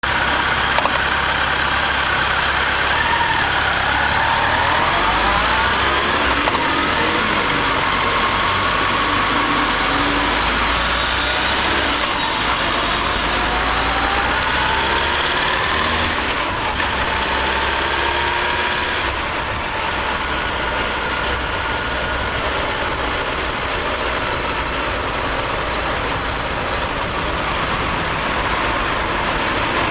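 Honda CB1300 Super Bol d'Or's inline-four engine heard from the bike itself, pulling away and riding in city traffic, its pitch rising and falling with the throttle and gear changes, over steady wind and road noise.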